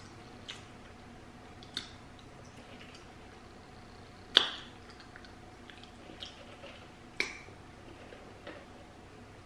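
Sipping a drink through a straw, heard close up as a few short, sharp mouth clicks and swallows spread over several seconds. The loudest comes about four seconds in.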